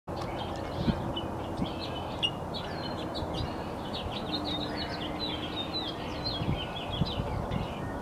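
Songbirds chirping: rapid runs of short, high notes throughout, over a steady low background rush. A few brief low thumps come in the first couple of seconds.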